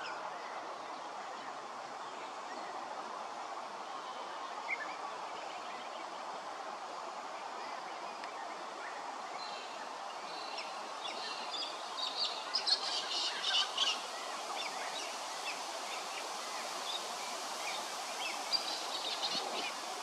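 Small wild birds chirping in quick high-pitched clusters, busiest from about ten to fourteen seconds in and again near the end, over a steady outdoor background hum.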